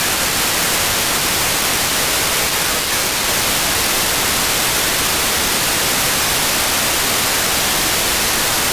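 Steady FM static hiss from a software-defined radio receiver tuned to the ISS amateur downlink on 145.800 MHz, with no voice on the channel.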